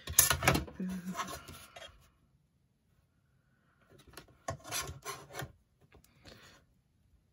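Thick card being handled and slid over a cutting mat, rustling for about two seconds. After a pause, a few rubbing scrapes as a ruler is slid across the mat into place.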